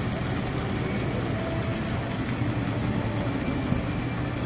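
Indoor fountain's water jets splashing steadily into the basin, over a low steady hum.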